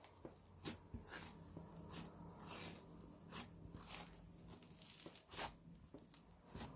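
Slime being stretched and squished by hand: faint, irregular crackles and squelches every half second or so.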